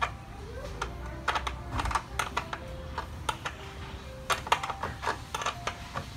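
Irregular plastic clicks and taps from hands working the back of a Mitsubishi Lancer tail light assembly from inside the trunk.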